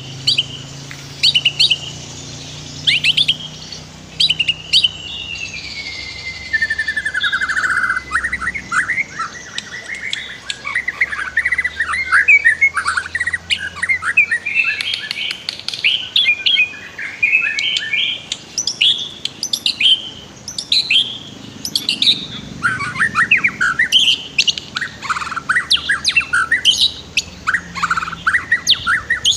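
White-rumped shama (murai batu) singing a long, varied song of sharp whistles, rapid trills and chattering notes with hardly a pause, including a long falling whistle about five seconds in, over the faint steady rush of a stream.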